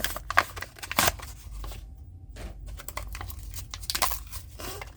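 A Hot Wheels blister card, cardboard and plastic, being torn open by hand: a run of irregular rips and crinkles, loudest about one second in and again near four seconds.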